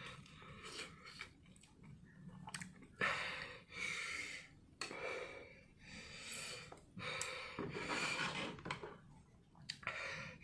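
A person panting and sucking air in through bared teeth in a series of short hissing breaths, a reaction to the burn of extremely spicy Buldak fire noodles.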